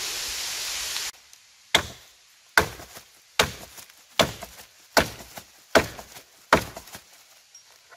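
Steady rush of river water that cuts off abruptly about a second in, followed by seven sharp chopping strokes into wood with a blade, evenly paced about one every 0.8 s.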